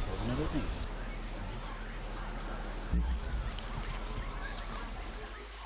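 Insect chirping in a high-pitched, fast and even pulse, cricket-like, running steadily.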